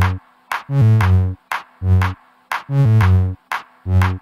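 Electronic dance music with a drum-machine beat and a repeating pattern of bass notes.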